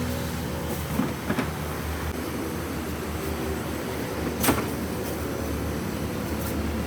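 Steady machinery hum of a factory floor, with a few sharp metallic clanks: two about a second in and a louder one near the middle.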